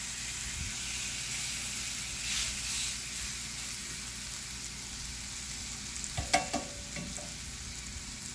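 Seasoned chicken breasts sizzling steadily in an oiled cast iron grill pan. About six seconds in, metal tongs clatter briefly against the pan.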